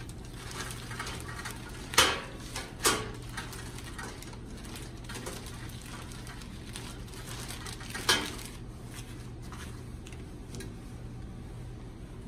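Plastic-backed sterile back-table drape crinkling and rustling as gloved hands adjust it, with sharp crackles about two, three and eight seconds in, over a steady low hum.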